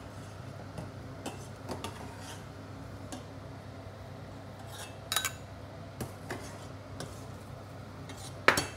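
Metal ladle clinking and scraping against a stainless steel saucepan as scallops are scooped out of the stock, in scattered light clicks. There is a louder knock about five seconds in and a sharp one near the end.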